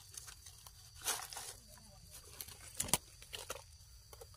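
Dry leaf litter crackling and rustling under hands picking mushrooms from the forest floor, with a sharper crack about three seconds in.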